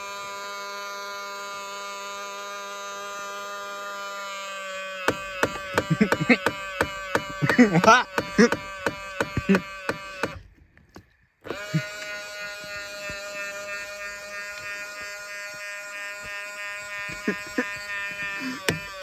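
Power side-mirror motor on a 2000 Ford Explorer buzzing steadily. About five seconds in, the buzz gives way to rapid irregular clicking for several seconds and cuts out briefly, then the steady buzz returns.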